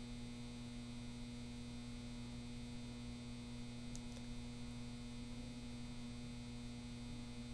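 Steady low electrical hum with faint hiss, the background noise of the voice-over recording, with a faint tick about four seconds in.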